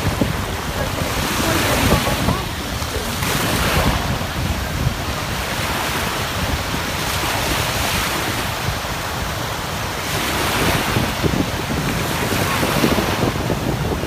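Sea waves breaking and washing ashore in repeated swells, with wind buffeting the microphone.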